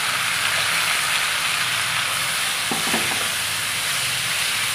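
Marinated chicken sizzling steadily in hot oil in a nonstick frying pan as it is stirred with a wooden spatula, with a short clatter against the pan about three seconds in.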